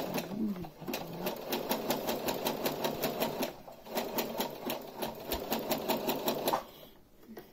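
Domestic sewing machine stitching: a fast, even run of needle strokes. It breaks off briefly about three and a half seconds in, then runs on and stops near the end.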